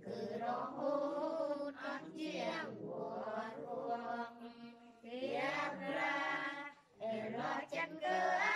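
A group of adults and children singing a hymn together in unison, unaccompanied, with a short pause between lines about seven seconds in.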